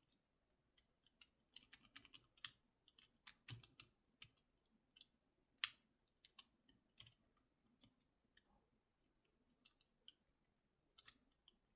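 Small plastic-and-metal clicks from the number wheels of a Master Lock 878 four-dial combination padlock being turned by hand, ticking irregularly as the dials step through their detents.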